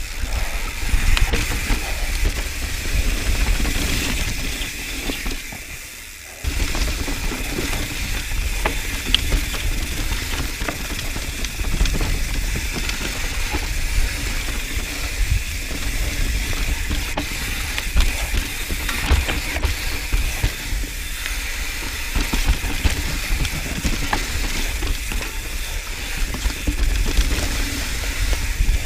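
Mountain bike descending rough singletrack: the rear freehub's ratchet buzzing while coasting, over wind rumble on the camera mic and rattling from the chain and bike over roots and rocks. It goes briefly quieter about five seconds in, then comes back sharply.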